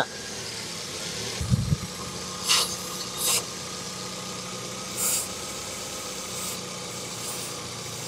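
Three short hisses of aerosol brake cleaner sprayed around the intake manifold to find a vacuum leak, about two and a half, three and a half and five seconds in. Under them a 2010 Hyundai Accent four-cylinder engine runs steadily at idle with a cylinder-4 misfire. There is a low thump about one and a half seconds in.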